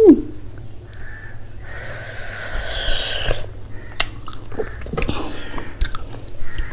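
Close-miked eating sounds: a short rising-then-falling vocal 'mm' at the start, then a long breathy huff of air out through an open mouth about two seconds in, followed by wet chewing clicks and smacks.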